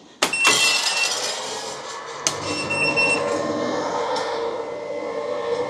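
Kaleido M2 Sniper coffee roaster dropping a finished batch: a sharp click, then the roasted beans rattle out of the drum and the cooling fan starts and runs steadily with a hum and a thin whistle. Two more sharp clicks come later.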